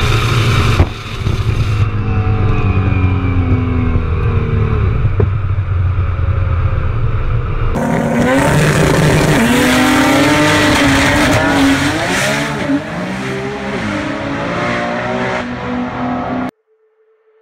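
Race-built R35 Nissan GT-R's 4.3-litre twin-turbo V6, running on methanol: first the engine note falling slowly as the car winds down at the end of a run, then, after a cut about eight seconds in, the car launching down the drag strip with the revs climbing and falling through the gears, fading as it pulls away. The sound cuts off suddenly near the end.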